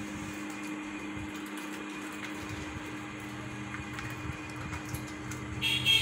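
Steady low hum with faint scattered ticks, and a budgerigar's short, loud chirp near the end.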